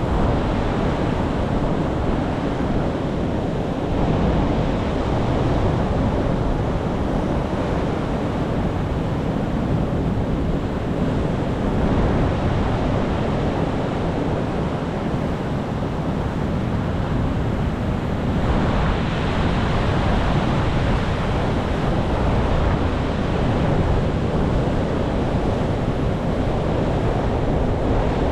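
Ocean surf: a continuous wash of waves breaking on a shore, swelling and easing every few seconds.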